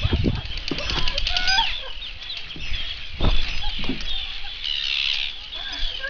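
A colony of Arctic terns calling over and over, many harsh, overlapping squawks at once, as the birds mob and dive at an intruder near their nests. A few low thumps break in near the start and about three seconds in.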